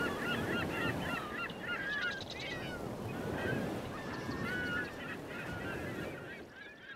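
A flock of birds calling, many short overlapping calls over a faint steady background noise, fading out near the end.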